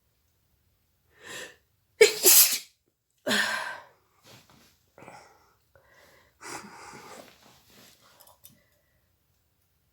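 A woman sneezing repeatedly: a short intake of breath, then a loud sneeze about two seconds in, followed quickly by two more. Quieter breathy nasal sounds come after.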